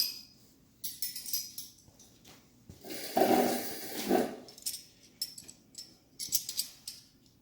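Metal hand wrenches clinking and jangling as they are picked out and sorted through, in several short bursts, with a longer, louder scraping rattle about three seconds in.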